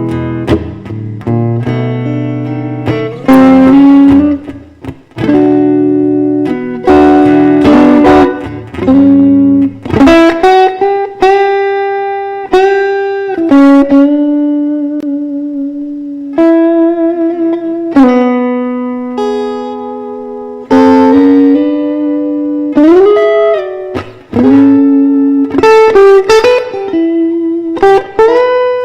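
Guitar playing a blues passage: chords over a bass line for about the first ten seconds, then single-note lead lines with sustained notes and bent strings.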